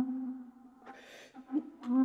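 Bass flute: a low held note that fades out, then a short breathy rush of air about a second in, and low notes starting again near the end.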